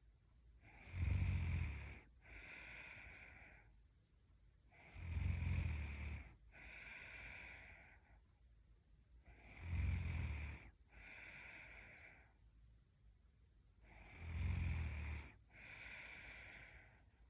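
A sleeping woman snoring: four slow breaths about four and a half seconds apart, each a loud, low snore followed by a quieter, hissier breath.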